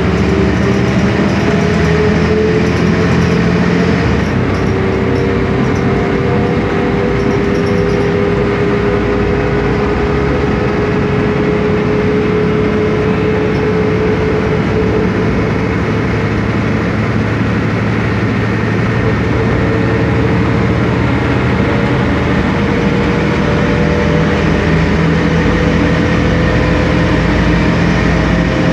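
The MAN D2866UH six-cylinder diesel engine and ZF Ecomat automatic gearbox of a Sanos S215 city bus, heard from inside the passenger cabin while cruising at road speed. It is a steady drone and whine that rises slowly in pitch as the bus gains speed.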